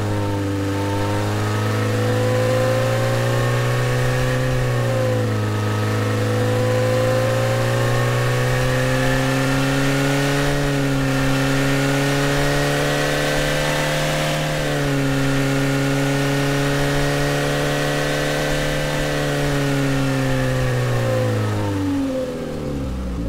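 Car engine sound resynthesized by the AudioMotors plugin in drive mode, its pitch stepping up and down several times as the throttle is worked, then falling away near the end as it slows back down.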